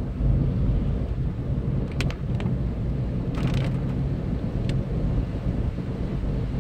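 Steady low rumble of a car driving on a wet road, heard from inside the cabin, with a few sharp ticks and a short crackle a couple of seconds in.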